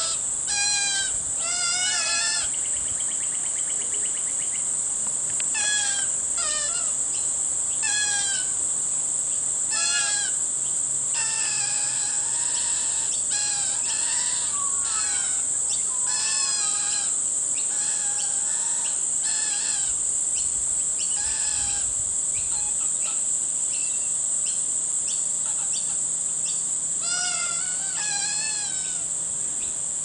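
Fledgling channel-billed cuckoos calling over and over with harsh begging calls, short notes in bouts every second or so, with a lull shortly before the end. These are begging calls to the currawongs that are raising them. A steady high insect buzz runs underneath.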